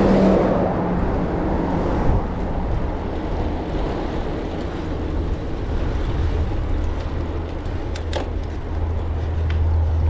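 Wind rushing over a bike-mounted action camera's microphone, with low rumble from a bicycle riding along; a few faint clicks about eight seconds in.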